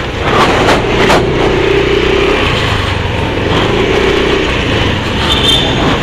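Wind rushing over a helmet-mounted camera's external mic while riding a motorcycle, a steady low rumble with the motorcycle's engine running underneath.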